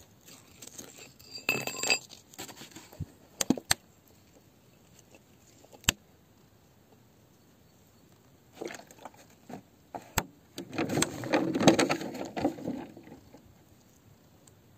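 Steel digging rod scraping and clinking against wet rock, with a ringing metallic clink about two seconds in and a few sharp isolated clicks after it. Near the end comes a longer stretch of scraping and rubbing as the stone is handled.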